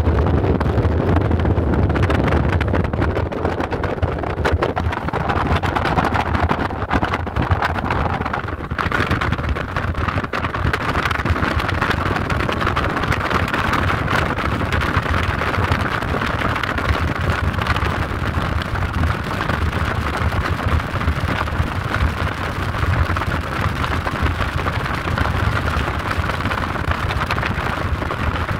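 Steady road noise from a moving car, a low rumble of tyres and engine with a rushing haze of air over it.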